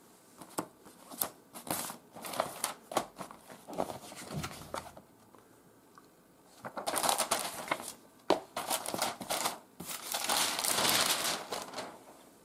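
Paper rustling and crinkling as a booklet and an instruction manual are handled and their pages opened, in several bursts with a few sharp clicks and a pause in the middle.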